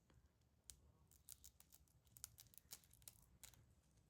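Wig lace being cut: a run of faint, sharp little snicks and scrapes, thickest through the middle, then stopping.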